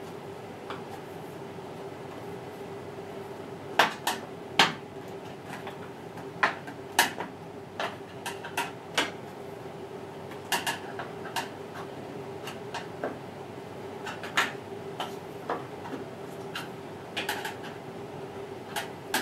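Control panel of an LG WM14225FD front-loading washing machine knocking and clicking as it is pushed and pulled by hand to free it from its retaining clips. The sharp knocks come irregularly, the loudest a pair about four seconds in, over a steady faint hum.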